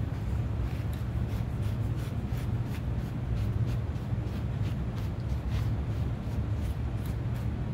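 Cloth rag rubbing and rustling over a wooden guitar body as stain is wiped in, in many short, irregular scuffing strokes. A steady low hum runs underneath.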